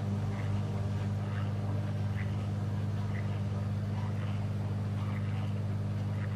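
Steady low electrical hum from the repair bench equipment, with faint light ticks about once a second.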